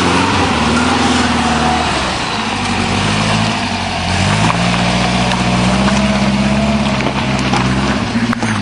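Off-road 4x4 vehicle's engine running hard under a loud, constant rush of noise. Its pitch sags slightly about two seconds in and climbs again about four seconds in.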